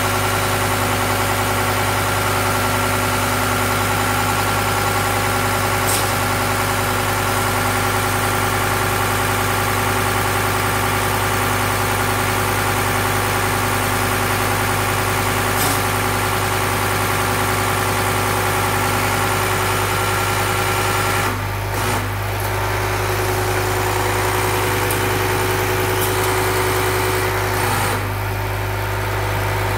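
Diesel injection pump test bench running, its drive motor turning the injection pump under test, with a steady hum, a high hiss and several steady tones as the pump is calibrated. About 21 seconds in the sound briefly dips and changes tone, and near the end the high hiss falls away.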